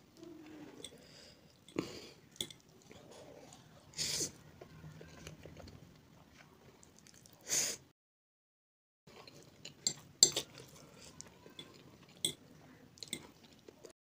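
Close-miked eating of spicy instant noodles: quiet chewing and mouth noises, sharp clinks of a metal fork against the plate, and two louder short bursts of breath or mouth sound. The sound drops out completely for about a second around the middle.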